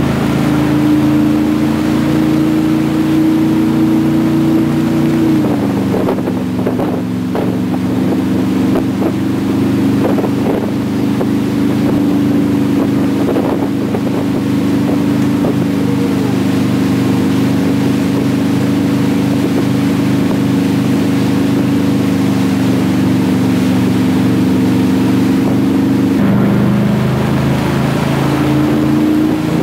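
Tow boat's engine running steadily under way, its pitch dropping a little about five seconds in and rising again near the end.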